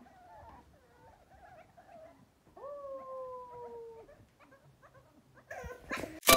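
French bulldog puppies whimpering and whining in short wavering cries, with one longer whine that falls slightly in pitch about halfway through. A sharp click comes right at the end.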